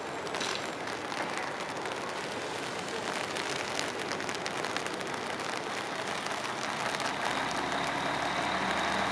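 Steady outdoor background noise, with a motor vehicle's engine coming up and growing slightly louder over the last couple of seconds.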